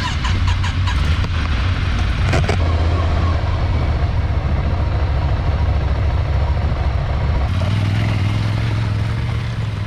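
Ducati Scrambler motorcycle engine running steadily, with a few clicks in the first second and a sharp knock about two and a half seconds in.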